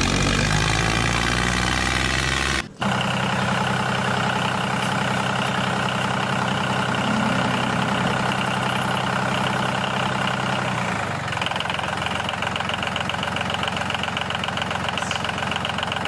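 Tractor engine idling steadily, laid over the toy tractor footage. The sound cuts out for an instant about three seconds in, then resumes, and it thins out a little after about eleven seconds.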